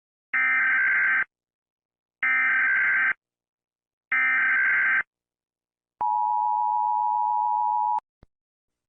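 Three one-second bursts of Emergency Alert System SAME header data, a buzzy digital screech, about a second apart. Then the EAS two-tone attention signal sounds steady for about two seconds and cuts off, followed by a brief click.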